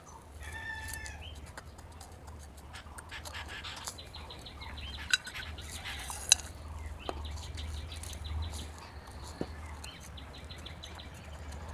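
Birds chirping in the background over the faint sound of building sand being poured from a bowl into terracotta pots and spread by hand. Two light sharp clicks come about five and six seconds in.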